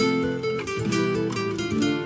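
Instrumental music led by quickly plucked guitar-like string notes over held lower tones.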